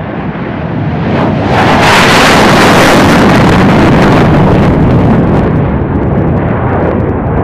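McDonnell Douglas F-15E Strike Eagle taking off on afterburner, a jet engine roar. It swells one to two seconds in as the jet climbs past, then eases slowly.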